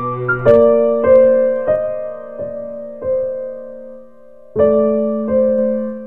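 Slow, gentle piano music: single notes struck about every two-thirds of a second, each ringing and fading, over a held low note, with a brief pause about four seconds in.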